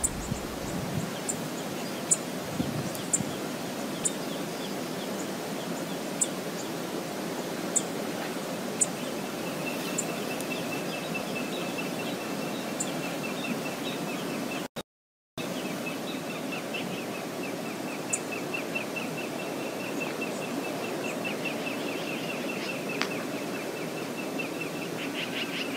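Steady outdoor background rush from a wildlife webcam, with scattered sharp high ticks in the first half. From about ten seconds in comes a rapid, high, pulsing trill. The sound drops out completely for a moment about halfway.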